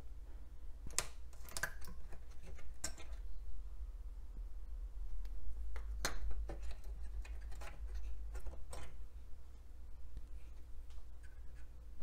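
Scattered sharp plastic clicks and small knocks of SIMM memory modules being unlatched and pulled from their sockets on a motherboard, over a low steady hum.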